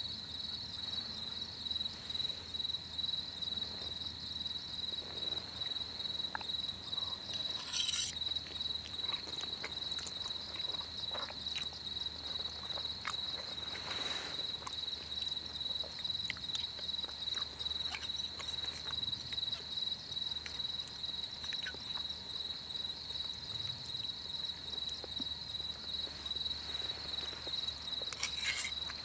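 Crickets chirping steadily, one continuous high trill with a fast fine pulse. A few brief clicks come through it, one near the start, one halfway and one near the end.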